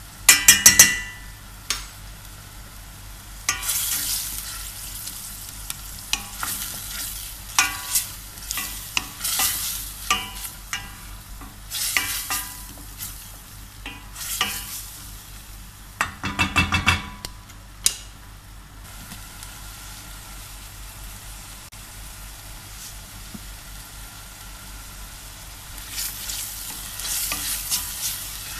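Chopped onion and garlic sizzling steadily in oil in a steel pan while a spoon stirs, scraping and knocking against the pan in bursts. The clatter is loudest right at the start and again about two-thirds of the way in. The sizzle runs on alone for a stretch before the stirring picks up near the end.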